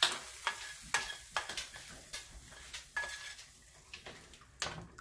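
A metal spoon scraping and knocking in a pan, about a dozen sharp strokes, some with a short metallic ring, over a light sizzle. The sound is hot garlic and spices fried in fat being stirred and scraped into the soup.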